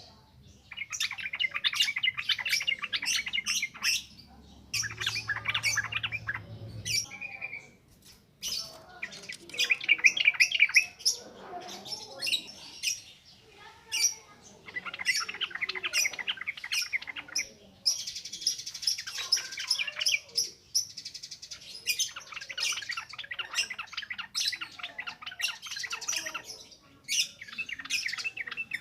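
Yellow-vented bulbul (trucukan) singing in long, rapid runs of chattering notes. The song comes in bouts of a few seconds each, with a higher, thinner stretch about two-thirds of the way through.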